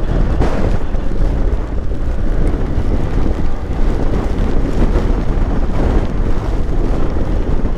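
Wind buffeting the microphone of an action camera on a moving motorcycle, a steady loud rush with a motorcycle engine running beneath it.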